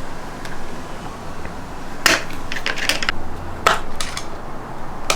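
Several sharp clicks and light knocks of small plastic and metal parts being handled, as a steering wheel's trim and wiring are worked free and its last T20 Torx screw undone. The clicks come singly about two seconds in, then in a quick cluster, then a few more towards the end.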